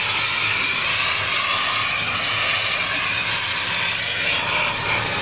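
Vacuum cleaner running steadily, its motor giving a constant hum and a high hiss of rushing air.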